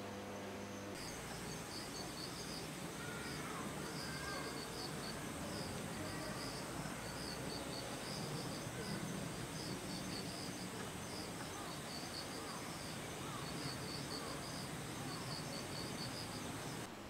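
Insects chirping in the grass: repeated clusters of high pulsed chirps over a steady high-pitched trill, with a low background rumble. A brief steady hum comes before the chirping, which starts about a second in.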